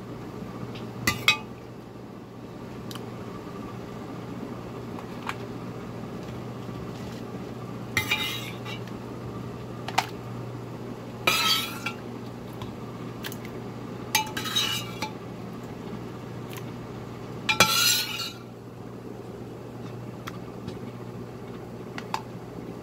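A metal ladle clinking and scraping against a pot and plastic containers as ragu is dished out, in a few scattered bursts over a steady low hum.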